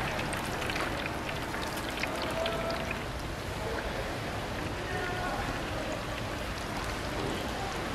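Battered food deep-frying in a wok of hot oil: a steady sizzle, with sharp crackling pops in the first few seconds.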